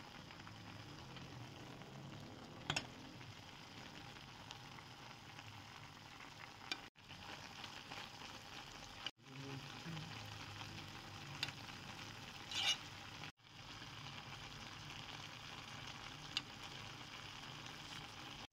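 Beef chunks and sliced onions with spices sizzling and bubbling in a pan, a steady faint crackle. It is broken by a few sharp clicks and by three brief moments where the sound cuts out completely.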